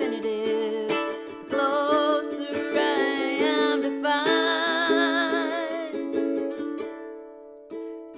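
Tenor ukulele strummed in chords with a woman singing over it, her held notes wavering with vibrato. The sound dies down about seven seconds in, then a fresh strum comes in near the end.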